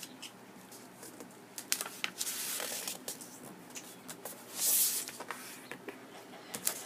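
A square sheet of paper being folded and creased by hand: crinkling rustles and small clicks, with louder rustles about two seconds in and again near five seconds.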